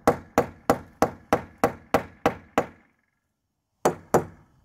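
Claw hammer tapping an anchor into a drilled hole in a brick wall: a run of about nine quick, even strikes, roughly three a second, then after a short pause two more.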